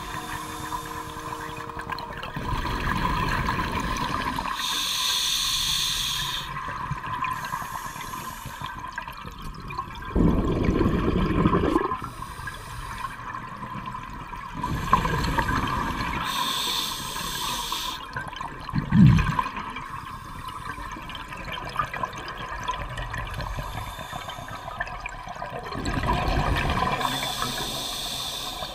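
Underwater scuba breathing on open-circuit bailout: the hiss of a regulator on each inhalation alternating with the low bubbling rumble of exhaled air, a breath every few seconds, over a faint steady whine.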